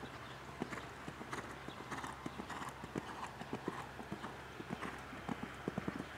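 Hoofbeats of a Holsteiner mare cantering on sand arena footing, taking a small jump partway through.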